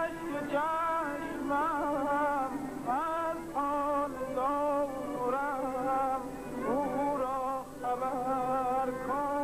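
Music: a man singing a slow song in long held notes that slide into pitch and waver with ornaments.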